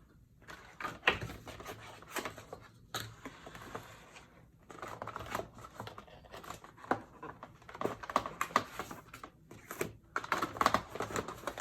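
Polaroid Spectra film packs being taken out of their package by hand: irregular rustling, scraping and light tapping of packaging, busier in the second half.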